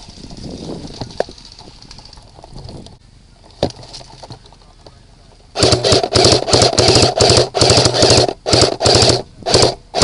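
Airsoft electric gun firing a rapid string of short full-auto bursts, starting a little past halfway and going on to the end, after a quieter stretch with a single click.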